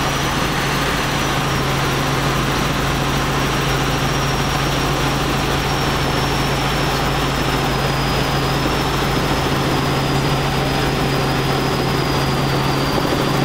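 Small helicopter in flight, heard from inside the cabin: engine and rotors run with a steady drone over a constant rushing noise, with a thin high whine that drifts slightly lower.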